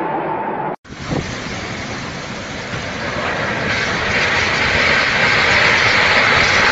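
Violent storm wind blowing hard, a heavy rushing noise that breaks off for an instant about a second in and then grows louder from about three seconds in.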